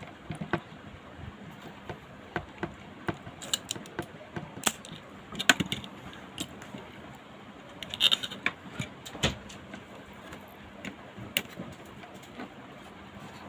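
Irregular clicks and knocks of tools and a circuit board being handled during desoldering, with a few louder sharp snaps like those of a spring-loaded desoldering pump.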